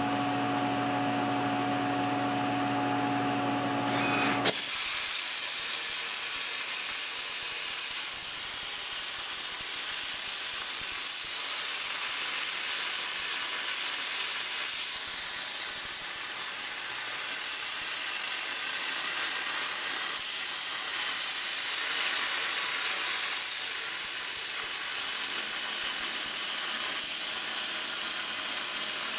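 Plasma cutter torch on a CNC table: a steady hum, then about four and a half seconds in the arc strikes and runs on as a loud, steady hiss while it cuts through steel plate.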